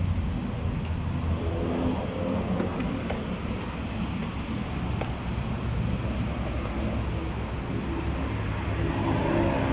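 Street traffic: motor vehicles running and passing on the road, with an engine, such as a motor scooter's, growing louder near the end.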